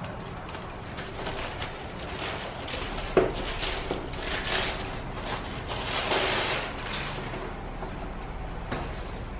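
Handling noise: scattered clicks, taps and scraping rustles, with a sharp click about three seconds in and a longer, louder rustle about six seconds in.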